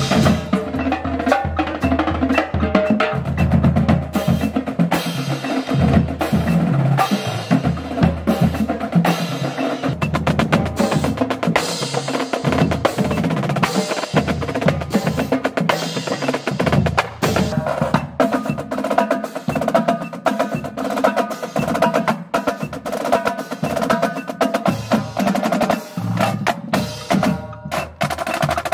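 Marching drumline playing together: snare drums, multi-tenor drums, pitched bass drums and crash cymbals in dense rhythms and rolls.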